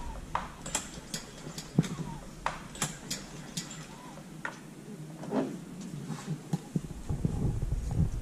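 Scattered, irregular light clicks and taps from gloved hands and tools working on a small pressure-washer engine that is switched off. A low rumble comes in near the end.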